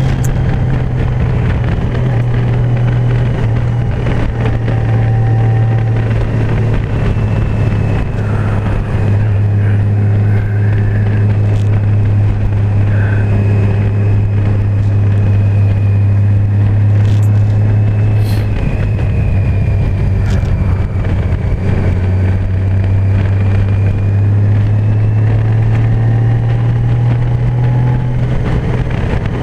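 Honda Gold Wing motorcycle engine running steadily at cruising speed, heard from the rider's seat. Its note shifts slightly a few times as the speed changes.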